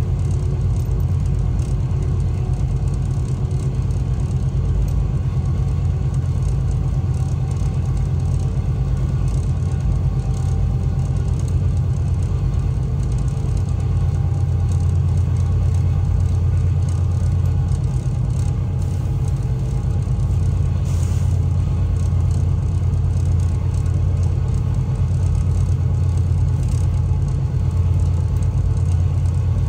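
GE diesel-electric freight locomotive engines running with a steady, deep drone as the train rolls along.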